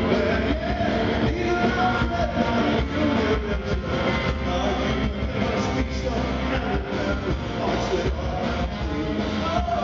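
Live rock band playing amplified through a PA: acoustic guitar, electric bass and drums, heard from the audience floor.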